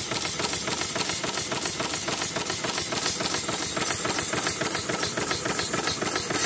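Simpson Strickland tandem quadruple-expansion marine steam engine running at speed, its valve gear and cranks making a rapid, even mechanical clatter.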